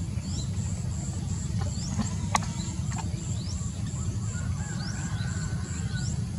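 Outdoor forest ambience: a steady low rumble under an insect chirping in an even pulse, about three a second, with several short rising whistles and one sharp snap about two and a half seconds in.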